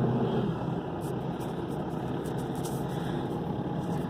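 Excavator's diesel engine idling steadily, heard from inside the cab, settling a little quieter about a second in, with a few faint clicks.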